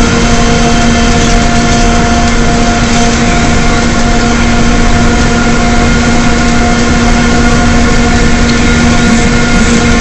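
Cummins ISL diesel and Allison B400R automatic transmission of a 2009 Gillig Advantage transit bus cruising, heard from inside the bus: a steady drivetrain howl at a constant pitch over loud engine and road noise.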